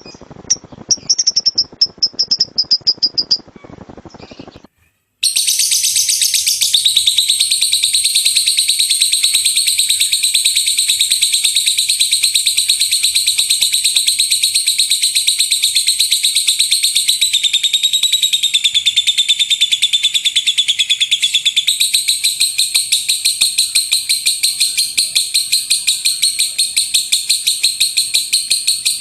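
Lovebird giving short, quick, high chirps, then, after a brief break about five seconds in, a long, loud, very fast unbroken run of high notes: the rapid 'gemuruh tembakan' call that lovebird keepers prize.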